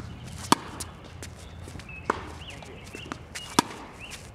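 Tennis rally on a hard court: three sharp pops of racket strings striking the ball, about a second and a half apart, the loudest from the near player's shots, with lighter clicks of ball bounces and footsteps on the court between them.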